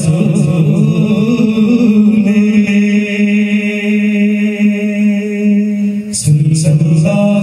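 Group of boys chanting an Islamic devotional song in unison through a PA. They hold one long note for several seconds, then the melody dips lower about six seconds in and rises back just before the end.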